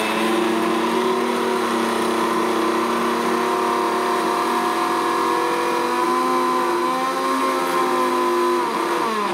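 Vidiem mixer grinder running at speed, its motor and blades grinding sliced apple and banana in the steel jar with a steady whine. Near the end the whine drops in pitch as it is switched off and winds down.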